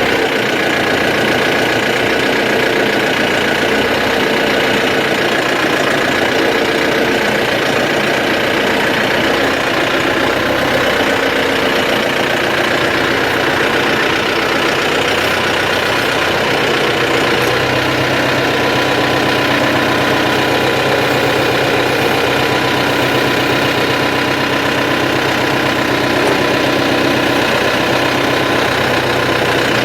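Farm tractor engine running steadily close by; its low note shifts for a stretch past the middle.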